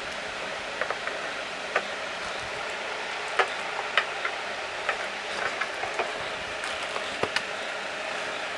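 Light, irregular clicks and knocks as the stand feet are handled and fitted onto the lower edge of a Mi 32-inch LED TV 4C Pro, over a steady background hiss.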